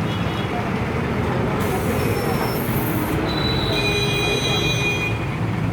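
Tractor-mounted combine harvester running steadily, with high-pitched squealing whines twice over, from about one and a half seconds to near the end.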